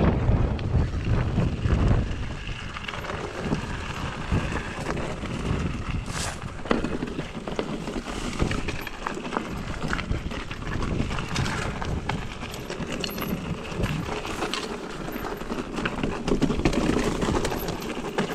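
Mountain bike riding over a rough trail: tyre noise on dirt and stones with frequent rattling clicks and knocks. Wind buffets the microphone in the first couple of seconds.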